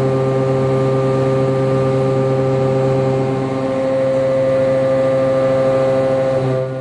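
Six-tooth Walter Blaxx indexable shoulder-milling cutter cutting 42CrMo4 alloy steel on a CNC machining centre: a loud, steady pitched hum with several overtones.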